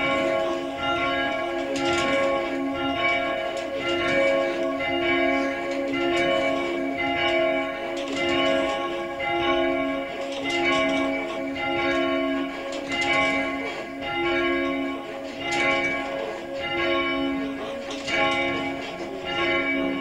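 Church tower bells from a ring of eight recast by John Taylor's of Loughborough, rung full-circle by hand from ropes in the ringing chamber. Strike follows strike, their tones overlapping, and the loudness swells and fades about every two seconds as each round comes around.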